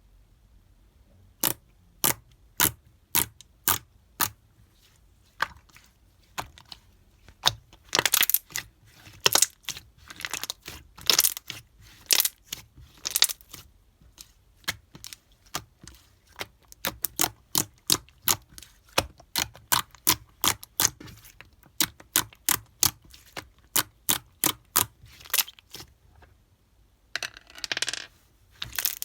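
Slime being pressed and stretched by hand, making a run of sharp clicking pops, about two a second at first and then quicker and irregular, with a few longer crackling squelches.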